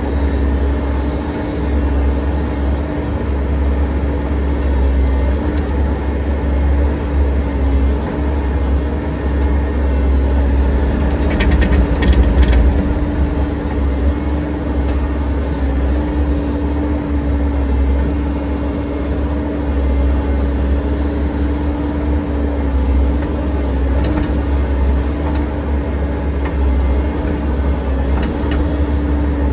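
Excavator's diesel engine running steadily with a constant hum and deep rumble, with a brief cluster of clicks and knocks about twelve seconds in.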